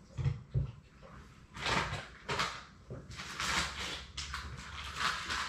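Two soft low thumps, then irregular bursts of rustling and scuffing, like something being handled.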